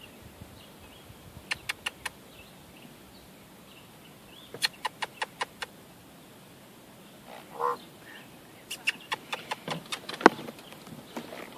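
Common raven making runs of sharp, rapid clicking calls, four to six clicks at a time, with a short lower call about seven and a half seconds in and a longer run of clicks near the end.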